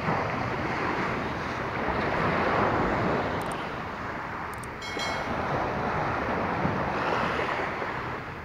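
Small waves washing in on a shore of coral gravel, swelling and easing twice, with wind buffeting the microphone.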